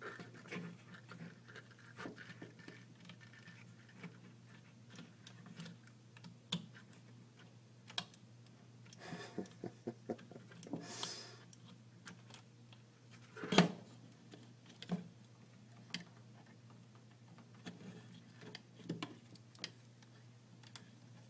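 Scattered light clicks, taps and short rustles of pliers, wire and laser-cut plywood printer-frame parts being handled on a wooden bench, with one sharper knock a little past the middle.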